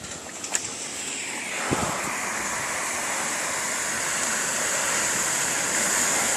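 A Hyundai car driving through deep floodwater on the road, its tyres throwing up a steady rushing wash of water that grows louder as it comes closer.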